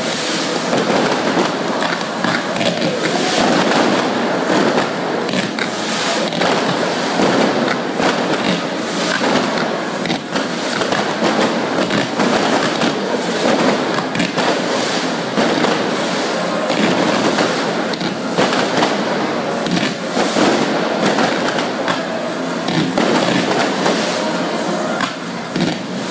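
Ground fireworks, fountains and gerbs spraying sparks, hissing and crackling continuously with rapid pops.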